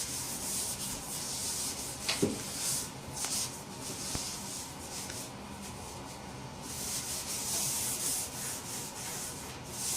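Scrubbing a kitchen sink basin coated with multi-purpose cleaner: scratchy rubbing that swells and fades with the strokes, with a single knock about two seconds in.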